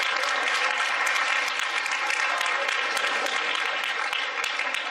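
Audience applauding, a steady crowd of clapping hands.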